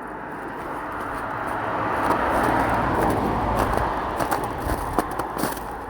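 A vehicle passing on the highway: tyre and engine noise builds to its loudest about two to three seconds in, then fades. Footsteps on the roadside come in over it near the end.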